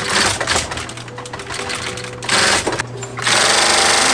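Post-bed leather sewing machine with a roller presser foot stitching a leather boot upper, running in spurts: a short run at the start, another about two seconds in, and a longer steady run from about three seconds in, the loudest. Background music plays underneath.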